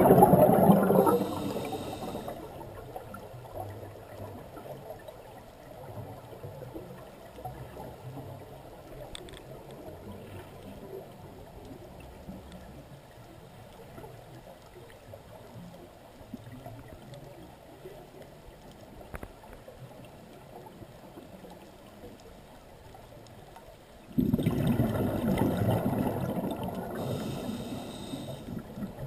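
A scuba diver's exhaled air bubbling out of the regulator underwater: one burst at the start, a long stretch of faint underwater noise, then a second loud burst of bubbles starting about five seconds before the end.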